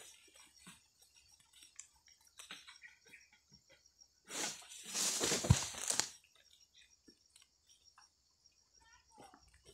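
A rustling crash as something cut from an oil palm comes down through the leaves for about two seconds, with a heavy thud midway, over a steady high hiss and scattered small clicks.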